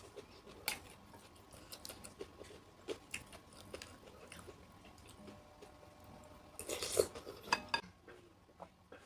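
Eating asinan Betawi of raw fruit and vegetables: crisp, crunchy chewing and a spoon clinking against the bowl, with scattered clicks and a louder flurry of clinks and crunches about seven seconds in.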